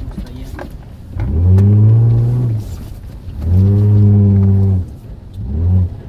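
Toyota Land Cruiser's engine heard from inside the cab, revving up in three bursts as the throttle is pressed and let off. The first two are each held for over a second before dropping away, and the third, near the end, is short.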